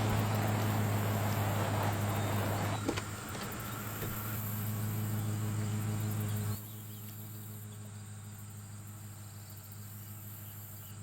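A vehicle engine idling with a steady low hum, which cuts off abruptly about six and a half seconds in. After that, insects chirp in the background.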